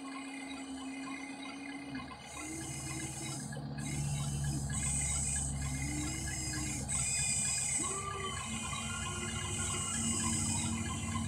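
Whine of the Huina 1593 RC excavator's electric motors and gearboxes as the boom and arm move. The pitch holds steady for the first couple of seconds, then rises and falls repeatedly, with a grinding hiss coming and going.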